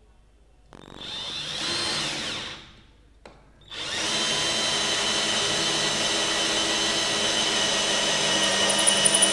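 A 20 V Flipkart SmartBuy cordless drill boring into a thick, hard wooden block with a twist bit, set in its single (low) speed gear. It gives a short run of under two seconds that rises in pitch as the motor spins up, stops briefly, then runs steadily for about six seconds while it cuts.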